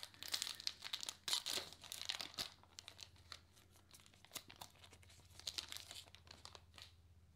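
Foil baseball-card pack wrapper being torn open and crinkled by hand: a dense run of crackling crinkles for the first two seconds or so, then scattered rustles that die away near the end.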